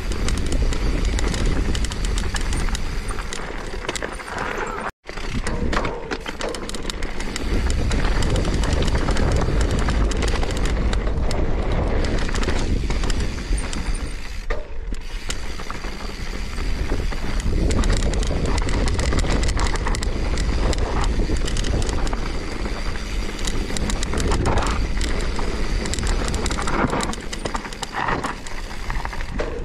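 Mountain bike riding fast down a dirt trail: wind rushing over the microphone with a heavy low rumble, and tyres and frame rattling over rough ground in constant small clicks and knocks. The sound cuts out for an instant about five seconds in.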